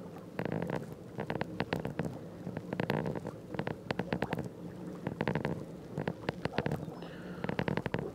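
Water lapping and gurgling against the hull of a pedal-driven kayak under way, with clusters of small splashes and slaps about once a second.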